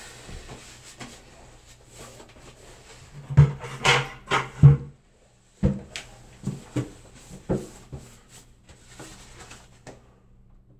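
Handling and movement noise as a wallpaper installer works: a cluster of irregular knocks and thumps a few seconds in, then several more spaced out, over a steady low hum.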